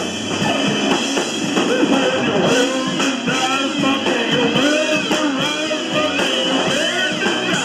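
Live rock band playing, with drum kit and guitar.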